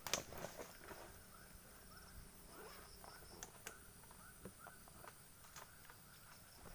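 Near silence: faint outdoor ambience with a sharp click at the start, scattered small clicks and a few soft rising chirps.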